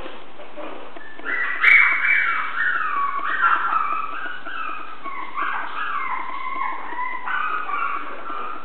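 Chihuahua puppies yipping and whining in a continuous run of short, high cries, many falling in pitch, with a sharp click about a second and a half in.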